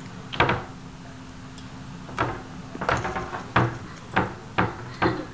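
Footsteps thudding down carpeted stairs: a single step about half a second in, then a steady run of steps about two a second from around two seconds in.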